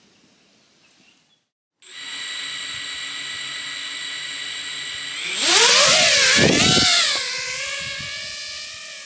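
Brushless motors of an FPV quadcopter (T-Motor 2203.5) starting suddenly about two seconds in with a steady high whine, then throttled up harder, the pitch swinging up and down before easing back to a lower hum.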